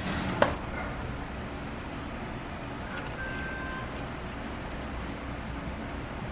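Steady low background hum, with a single short click about half a second in.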